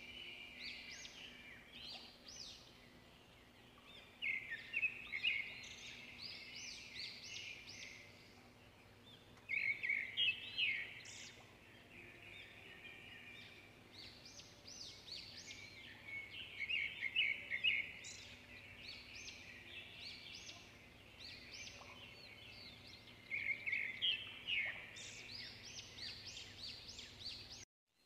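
Chana dal (split chickpeas) deep-frying in hot oil, sizzling with dense crackling that swells into louder bursts every few seconds.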